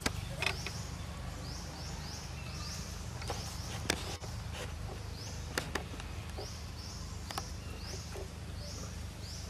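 Outdoor wildlife ambience: small birds chirping, short high rising chirps repeating every half second or so in runs, over a steady low rumble. A few sharp clicks stand out, the loudest near the start and about four seconds in.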